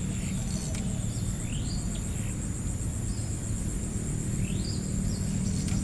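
Riverside outdoor ambience: a steady low rumble under a continuous high insect drone, with a short rising whistled bird call repeating about every three seconds.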